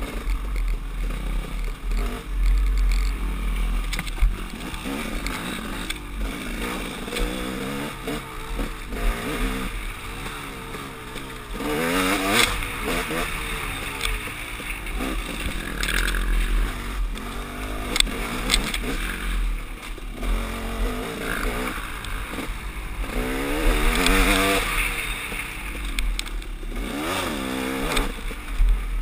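Two-stroke KTM XC-W dirt bike engine revving up and down repeatedly, blipping and pulling hard, with wind buffeting the helmet microphone and scattered knocks from the bike over rough ground.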